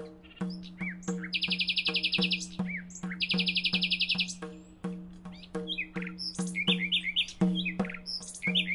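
Background music with a steady pulsing beat, with bird chirps and two fast trills over it.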